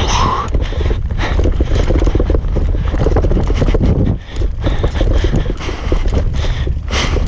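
Mountain bike, a Norco Range, ridden fast downhill on a dry dirt trail: tyres rumbling over dirt and roots while the bike clatters with constant irregular knocks, heard close up from the on-bike camera. The noise drops off briefly about four seconds in, then resumes.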